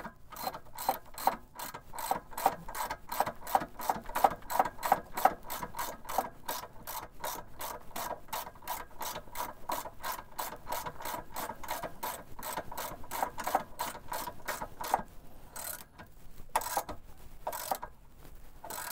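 Hand ratchet with a 10 mm socket clicking steadily, about three clicks a second, as a bolt is run up tight. The clicking stops about 15 seconds in, then comes back as three separate single clicks near the end.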